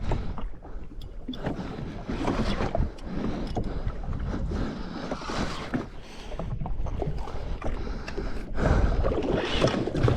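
Wind buffeting the microphone and sea noise around a jet ski on open water, swelling and easing in gusts, with scattered small knocks.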